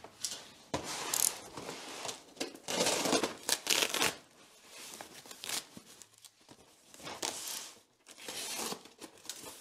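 Corrugated cardboard packaging being ripped open by hand: irregular tearing and crinkling, in a long stretch of ripping, a quieter spell midway, then more tearing as a blade slits the cardboard near the end.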